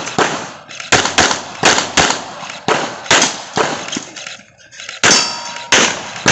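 Rapid handgun shots in quick strings, about two to three a second, with a short pause about four seconds in. About five seconds in, a shot is followed by a brief metallic ring, then firing resumes.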